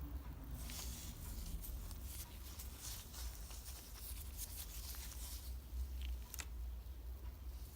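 Faint handling noise: scattered light clicks and scrapes over a low steady hum, with one sharper click about six and a half seconds in.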